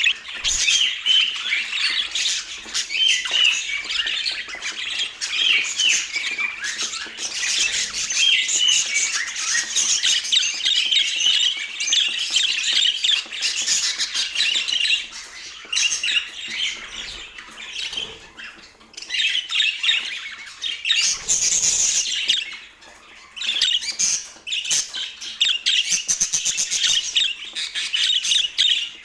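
A group of budgerigars chattering continuously: many overlapping quick chirps, warbles and squawks, with a louder harsh burst about three-quarters of the way through.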